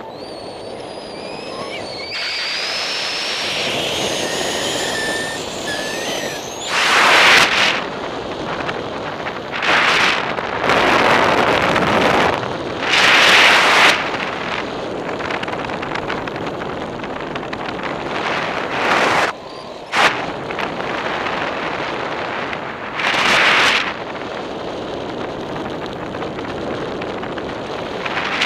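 Wind rushing over the microphone during unpowered paraglider flight, with no engine running: a steady rush broken by about six loud gusts that buffet the microphone. A high wavering whistle sounds over the first six seconds.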